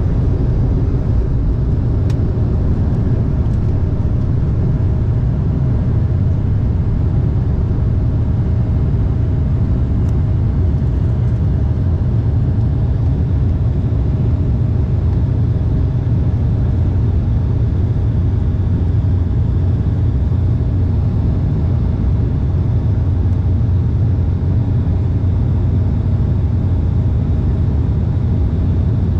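Jet airliner cabin noise heard from a window seat over the wing: a loud, even rumble of engines and airflow that holds steady throughout, with a few faint steady whines above it.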